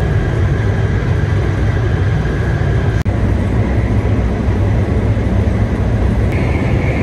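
Steady low rumble and hiss inside a 500 series Shinkansen car running along the line. There is a brief dropout about three seconds in, and a faint high steady whine joins near the end.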